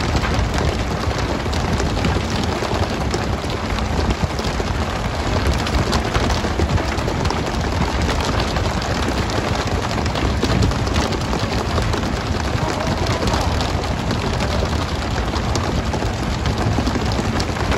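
Steady rushing hiss of water spray and churning sea on a pole-and-line tuna boat, with a constant patter of small slaps and knocks as skipjack tuna are flicked aboard and land on the deck.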